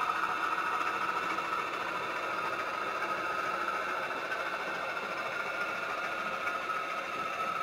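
O gauge model goods train rolling past on the track: a steady whirring rattle of the wagons' wheels on the rails.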